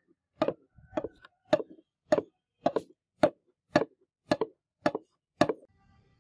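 Steel cleaver blade rubbed back and forth by hand on wet 5000-grit sandpaper, a short scrape with each stroke, about two a second. The strokes stop shortly before the end.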